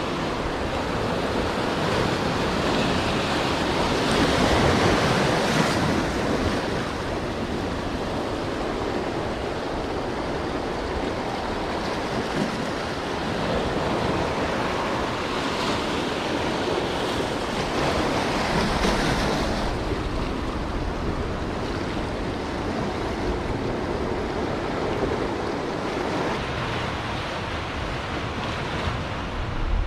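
Ocean surf breaking and washing over a rocky shore, with swells surging louder twice. Wind buffets the microphone.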